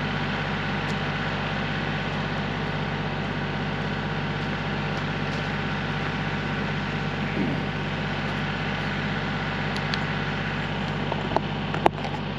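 Kubota L3901 compact tractor's three-cylinder diesel engine running at a steady speed, with two sharp knocks near the end.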